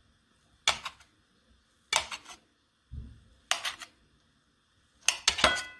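A kitchen knife cutting down through a block of fresh paneer and knocking against the ceramic plate beneath, about six sharp knocks roughly a second apart, one of them duller and the last one ringing briefly.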